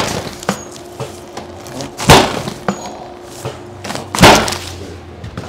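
Three heavy thuds from chiropractic adjustments on a treatment table, about two seconds apart, each dying away quickly, with lighter clicks between them over a faint steady hum.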